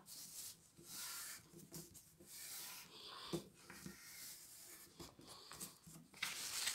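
Fingers rubbing along the fold of a sheet of A4 paper on a wooden table, pressing the crease flat: faint, intermittent rubbing and swishing strokes, with a light tap about three and a half seconds in.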